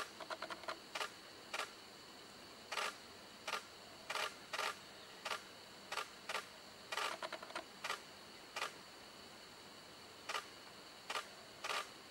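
Camera shutters clicking at irregular intervals. Some are single frames and some are quick bursts of several frames, including a run of rapid clicks just after the start and another about seven seconds in.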